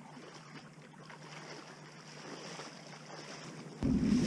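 Faint splashing and swishing of legs wading through shallow water. Near the end, a sudden loud low rumble cuts in and takes over.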